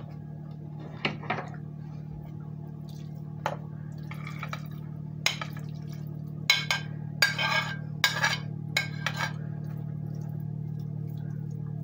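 A metal spoon scraping and clinking against a ceramic plate while chopped salmon-and-onion filling is scooped into a pie pan, with a cluster of sharp clinks in the middle. A steady low hum runs underneath.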